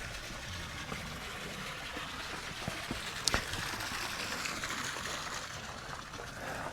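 Steady trickle of running water, with a single sharp click about three seconds in.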